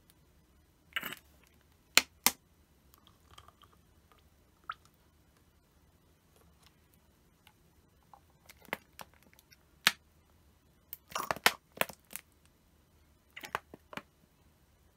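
Irregular sharp clicks, taps and crackles of a plastic oil bottle and its cap being handled and tipped over a paper cup, with a quick run of them about two-thirds of the way through.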